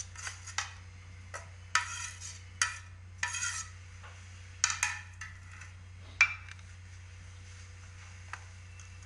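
A spoon scraping and clinking against a bowl as mashed paneer is put in and mixed, in irregular strokes that stop about six seconds in. A low steady hum runs underneath.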